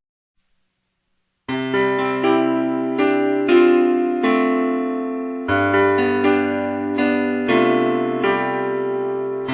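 Silence for about a second and a half, then keyboard music starts: sustained piano-like chords with notes struck in an even pattern and the chord changing twice.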